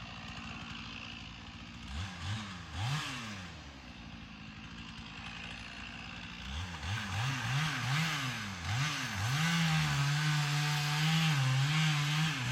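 Two-stroke chainsaw idling, revved up and down a couple of times about two seconds in and again in a run of quick revs a few seconds later, then held at steady high revs.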